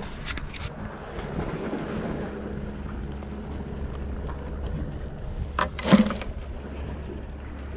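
Wind buffeting the microphone over a low steady hum, with short clicks and rustles of hands handling a small fish on the line to unhook it. The loudest of these comes about six seconds in.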